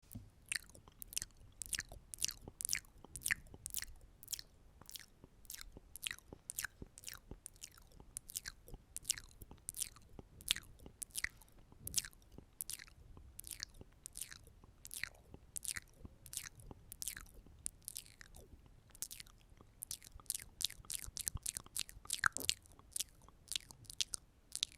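ASMR mouth sounds close to the microphone: a steady run of wet clicks and pops, about two a second, quickening near the end.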